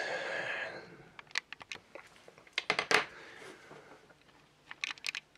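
Light clicks and taps of hand tools being handled on a cutting mat, as a hobby knife is picked up. They come in small clusters, the loudest about three seconds in, after a short soft rustle at the start.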